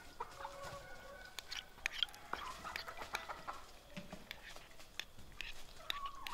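Chickens clucking in short calls, with a spoon clicking against the side of a bowl as a sauce is stirred.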